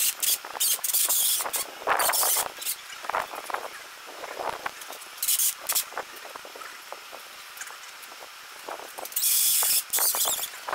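Metal parts of a solar trough frame being handled as receiver tubes are fitted: scattered clicks and knocks, with four short hissing bursts.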